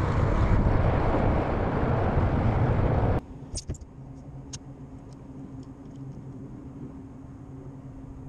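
Loud rushing noise on the microphone for about three seconds, cut off suddenly. It gives way to the quieter, steady electric hum of a MotorGuide trolling motor pushing the kayak, with a few light clicks just after the change.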